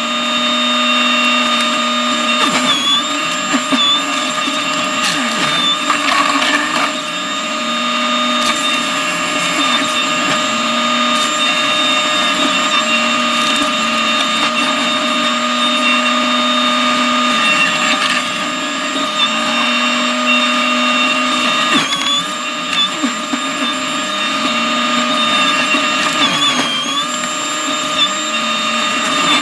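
New Holland C327 skid steer running a McLaren RM60 forestry mulching head: a steady high whine from the spinning head over the engine. The engine's tone dips and recovers every few seconds as the head takes load.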